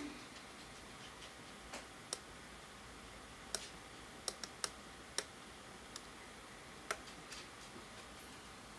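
Small pushbuttons on an Adafruit Monochron clock kit being pressed to step through its menus, each press a sharp click: about seven irregular clicks, three in quick succession near the middle.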